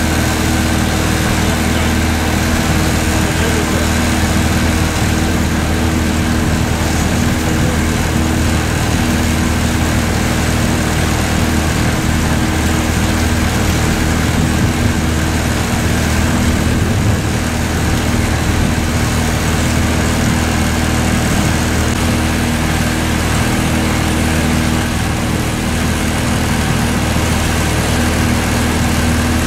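Boat engine running steadily, an unbroken even drone.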